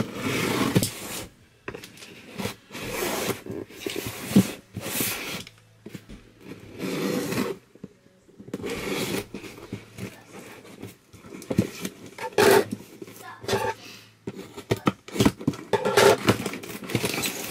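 A cardboard subscription box being torn open and its packaging handled: a series of separate tearing and scraping bursts, each up to about a second long.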